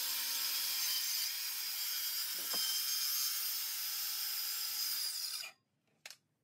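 Circular saw cutting across a pine board, the blade running steadily through the wood with a constant motor tone under it; the sound cuts off suddenly about five and a half seconds in, and a single short tick follows.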